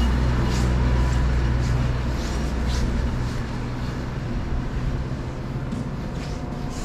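Low steady rumble of a motor vehicle's engine in city traffic, dying away about three seconds in, with footsteps crunching in snow about twice a second.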